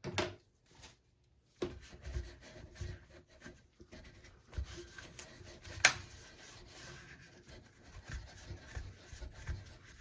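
Light rubbing and scattered small clicks from an AR-15 lower receiver being handled and cleaned, with one sharp metallic-sounding click about six seconds in.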